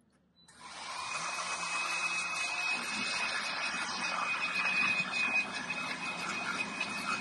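Handheld power drill with a long bit boring down into a log, starting about half a second in and running steadily with a high, constant whine.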